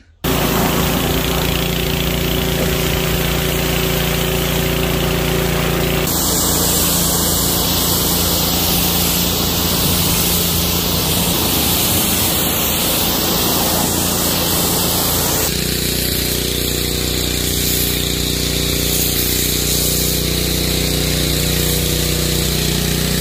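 Pressure washer running: a steady motor hum under the loud hiss of the water jet from the wand hitting a car's bodywork. The sound changes abruptly twice, about six and fifteen seconds in.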